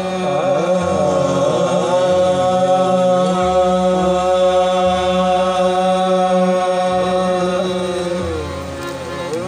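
Qawwali singing with harmonium: the voices run through a few melodic turns, then hold one long note over a steady harmonium drone, easing off near the end.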